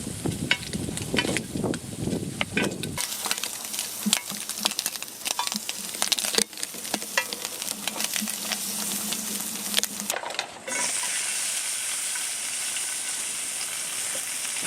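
Meat frying in a hot pan: a crackling, popping sizzle. About ten seconds in it turns into a louder, steady hiss.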